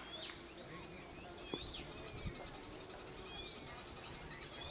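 Outdoor insect chorus: a steady high-pitched buzz, with a few short chirps over it and one faint knock about a second and a half in.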